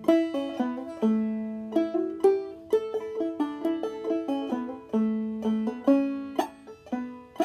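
Five-string banjo played clawhammer style in open G tuning capoed up to A: a steady run of plucked, ringing notes in a Kentucky fiddle tune, with hammer-ons, drop-thumb notes and a few short slides.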